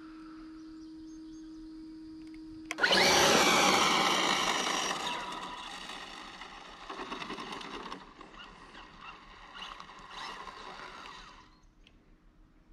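Electric RC drag car launching about three seconds in: a sudden, loud whine from its brushless motor on a Hobbywing 10BL120 speed control and its drivetrain, with tyre noise, fading steadily as the car runs away down the lot and dying out near the end. It pulls without stuttering or cogging.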